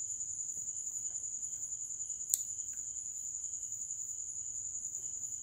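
A steady high-pitched trill over faint room noise: one continuous tone with a fast, even pulse. A single sharp click comes about two seconds in.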